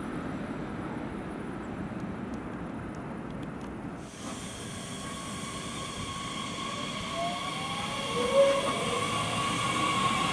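For the first four seconds, a distant ICE high-speed electric train rumbling away. Then a DB Class 442 Talent 2 electric multiple unit approaches along the platform with a steady electric whine of several tones, a few tones sliding in pitch and a short louder sound near the end, growing louder as it nears.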